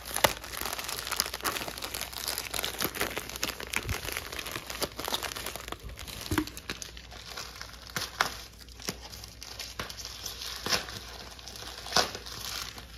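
Plastic packaging crinkling and crackling as hands open a USPS padded plastic mailer and work at the plastic wrapping inside, with a run of sharp crackles throughout.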